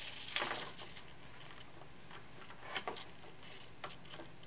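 A few small clicks and light rustling as a laser-cut wooden leg is fitted onto a servo of a Nybble robot cat by hand.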